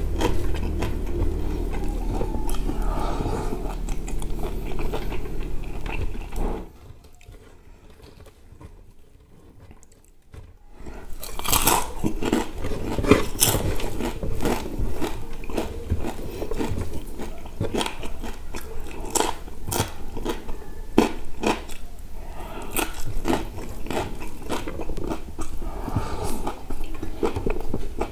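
Close-miked chewing and wet mouth sounds of a person eating rice with sambal by hand, with many sharp lip-smacking clicks. It goes quiet for a few seconds about a third of the way in, then the chewing clicks resume.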